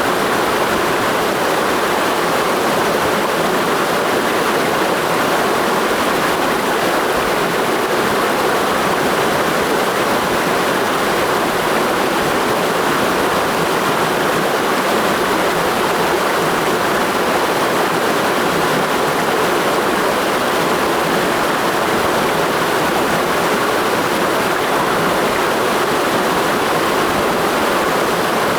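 Clear mountain stream rushing over rocks in a gorge, a steady, unbroken water noise.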